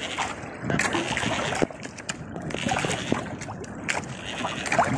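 Choppy sea waves slapping and splashing against the hull of a small outrigger boat, a steady wash of water with irregular sharp splashes and knocks.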